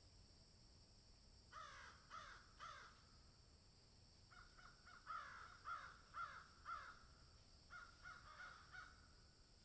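Crows cawing: three harsh caws about a second and a half in, a longer run of caws from about four seconds, and a few more near the end.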